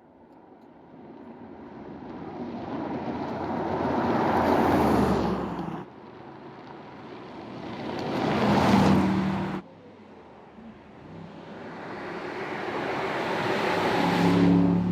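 Mercedes-AMG GT's 4.0-litre twin-turbo V8 driving by three times. Each time it grows steadily louder to a peak, then cuts off suddenly.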